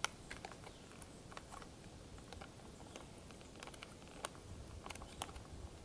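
Scattered faint crinkles and clicks of a plastic food pouch being handled and opened by hand.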